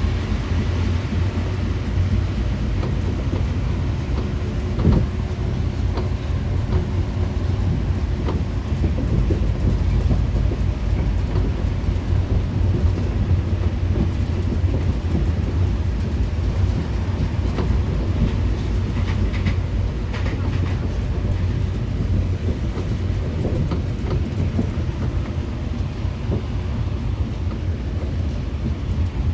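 Interior of a Paris Métro MP 73 rubber-tyred train running, with a steady low rumble and scattered clicks and knocks. A louder knock comes about five seconds in.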